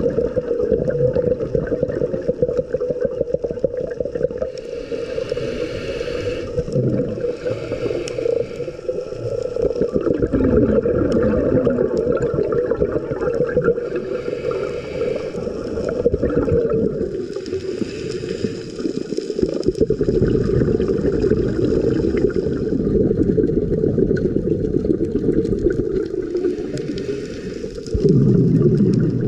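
Muffled underwater sound picked up through a camera's housing, with bubbling bursts every few seconds from a scuba diver exhaling through the regulator.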